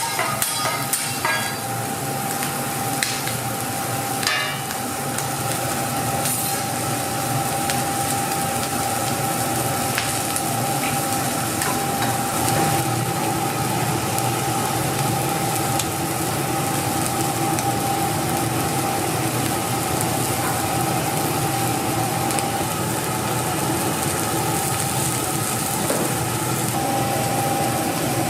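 Egg fried rice sizzling in a hot pan. A metal spatula clinks and scrapes against the pan several times in the first couple of seconds. Underneath runs a steady mechanical hum with a constant faint whine.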